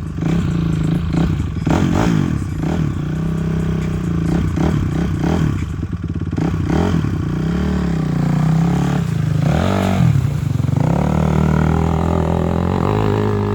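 Off-road vehicle engine revving up and down repeatedly as it pushes through the deep side of a river crossing, over a steady low engine hum, with some clattering.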